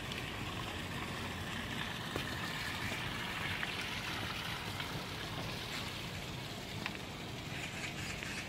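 Steady rush of a shallow rocky stream spilling over low weirs.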